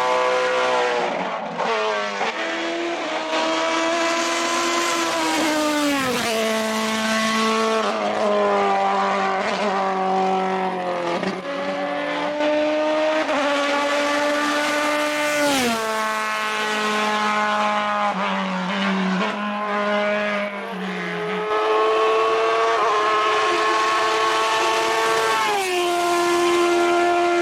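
Hill climb race car engine at high revs, heard continuously. Its pitch climbs and then drops sharply every few seconds as the driver works through the gears.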